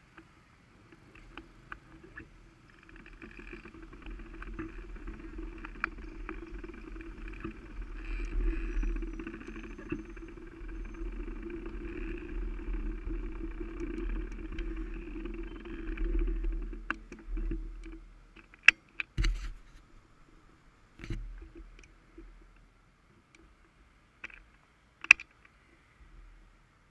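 Honda CB500F parallel-twin engine running as the motorcycle rolls slowly through traffic, then going quiet about eighteen seconds in. After that come a few sharp clicks and knocks.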